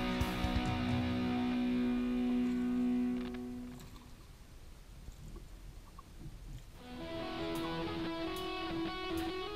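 Background guitar music with held notes; it drops away after about three seconds and comes back in about seven seconds in.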